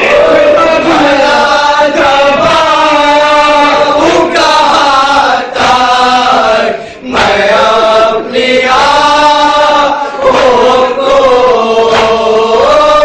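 Men chanting a nauha, a Shia mourning lament, in long wavering melodic phrases, a lead voice with others chanting along, pausing briefly for breath between lines.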